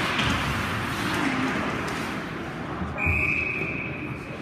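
Hockey referee's whistle, one long steady high blast starting about three seconds in to stop play, over the steady scrape and hiss of skates and rink noise.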